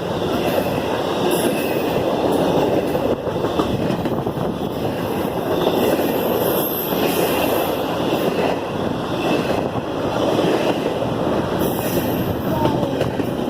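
Freight train rolling past, a steady rumble of wheels on the rails with brief high-pitched wheel squeals now and then.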